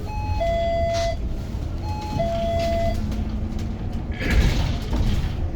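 Edison Motors SMART 093 electric bus's two-note falling chime, a short high tone then a longer lower one, sounding twice, the kind a bus door gives as a warning. About four seconds in comes a short hiss of released compressed air, over the steady rumble of the bus.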